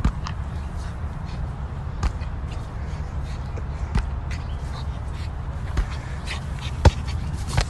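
An inflatable beach ball bouncing on dry ground: a handful of scattered short thumps, the loudest about seven seconds in, over a steady low rumble.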